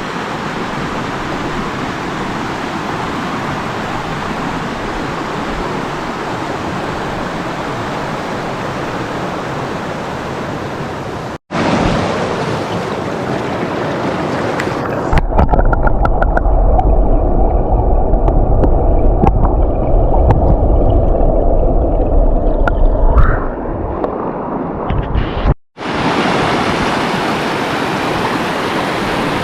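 Steady rushing water, a continuous hiss, broken by two abrupt cuts. In the middle section a heavy low rumble with muffled highs takes over for about eight seconds.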